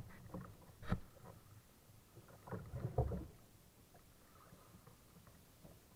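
Sounds of a sailing kayak under way: a sharp knock about a second in, then a cluster of knocks and thuds around three seconds, over a faint low background of water and hull noise.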